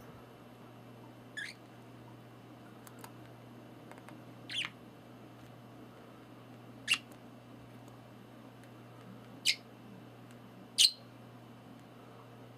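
Budgerigar giving five short, high single chirps a few seconds apart, the last ones the loudest.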